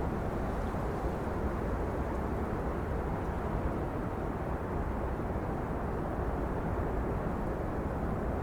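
Trade wind blowing steadily, a constant low rush with no gusts or breaks.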